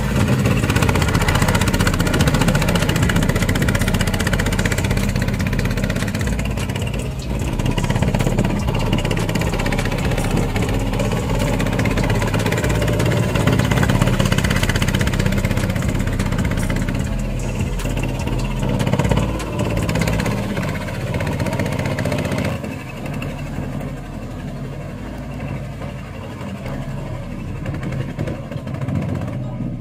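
Boat tractor's 20 hp Chinese diesel engine running steadily, growing quieter about three-quarters of the way through.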